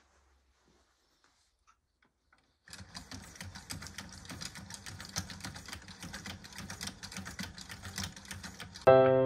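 Wooden cams and linkages of a hand-cranked automaton clattering in a rapid, even stream of clicks as the crank is turned at full speed, starting a few seconds in. Piano music comes in loudly just before the end.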